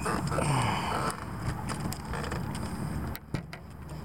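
Wind rumbling on the microphone, with creaks and a few clicks and knocks, loudest in the first second.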